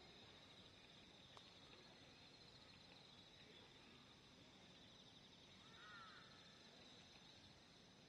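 Near silence: faint outdoor ambience with a steady high insect trill throughout and a short bird call about six seconds in.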